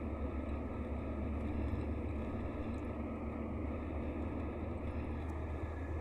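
Mercedes-Benz O-500RSD coach's diesel engine running steadily on the move, a constant low rumble.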